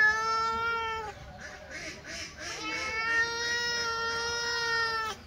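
Domestic cat giving two long, drawn-out, steady-pitched meows: the first ends about a second in, and a longer one starts about halfway through.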